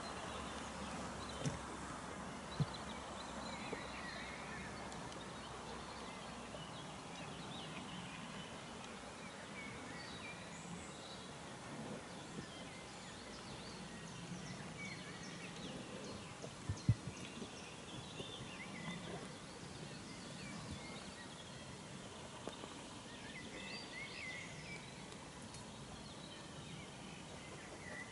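Faint outdoor ambience with small birds chirping and singing in short scattered phrases, and a few soft knocks, the clearest about 17 seconds in.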